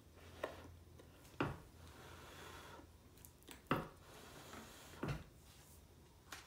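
Eating utensils knocking against a dish: four sharp knocks, spread over a few seconds.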